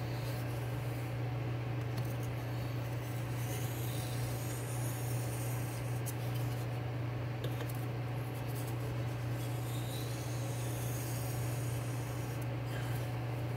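D2 steel knife blade, clamped in a DMT aligner guide, drawn across a bench stone in light scraping strokes to deburr the edge, with small clicks of the clamp being handled. A steady low hum runs underneath and is the loudest sound.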